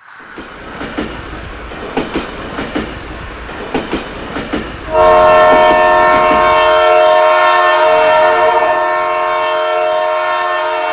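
Battery-powered toy bullet train running on a plastic track, its wheels clicking unevenly over the track joints. About five seconds in, its built-in electronic horn sounds: a loud, steady tone that holds to the end.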